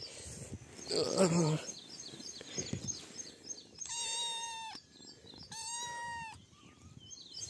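A cat meowing: two long, even, high-pitched meows, about four and about six seconds in. Faint short high chirps repeat during the first few seconds.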